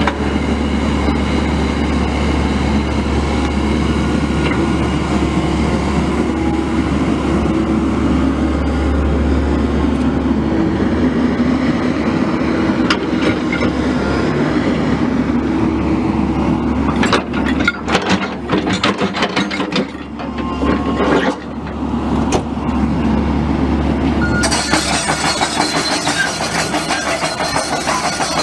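Diesel engine of a Komatsu PC138US-8 crawler excavator running with a steady low drone. A run of sharp metallic clanks and knocks comes about two-thirds of the way through, and a hissier, higher sound joins near the end.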